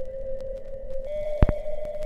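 Music: a held electronic tone that steps up in pitch about a second in, over a low bass rumble, with one sharp click near the middle.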